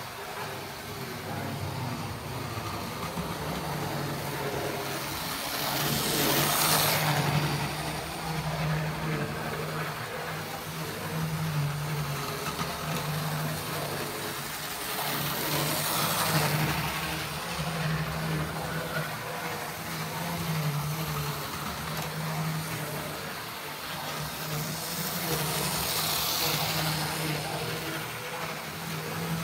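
Tri-ang R.357 Class 31 model diesel locomotive running round an OO gauge layout: its electric motor gives a steady hum, and the wheels run over the track. The sound swells three times, about ten seconds apart, each time the locomotive passes close by on its circuit.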